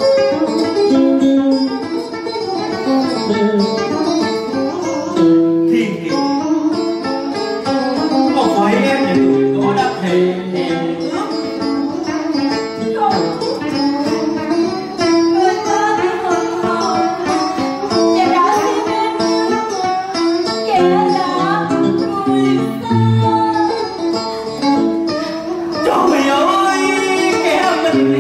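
Live cải lương accompaniment music: plucked string instruments play a melodic passage without pause.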